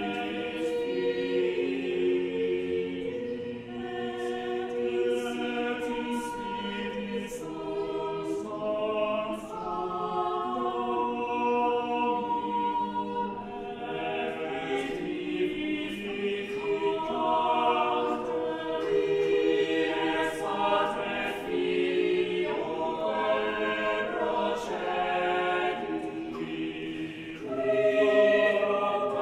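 Mixed-voice chamber choir of about thirteen singers singing a cappella in several parts, holding chords that change together.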